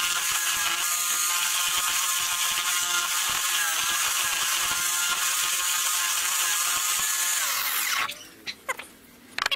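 Homemade horizontal drill, a drill chuck spinning on a bicycle hub bearing, running steadily while its bit bores into a wooden block. Near the end it is switched off and winds down, its pitch falling away.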